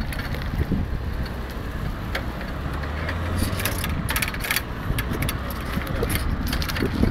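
Riding a bicycle on paved road: a steady low rumble of road and wind noise, with a run of sharp clicks and rattles from the bike over rough surface.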